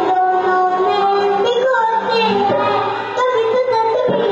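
A child singing a slow melody in long, wavering held notes, with musical accompaniment.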